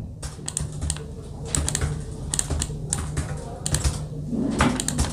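Typing on a laptop keyboard: irregular, sharp key clicks over a steady low hum.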